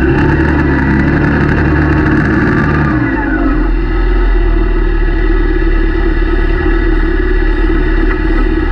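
Quad ATV engine running, its pitch falling about three seconds in as it drops back to a steady idle.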